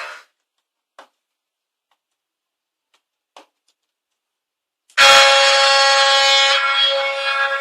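Ship horn sound effect for an RC boat: after a few seconds of near silence broken by two faint clicks, a loud steady horn blast starts abruptly about five seconds in and holds, its pitch unchanging.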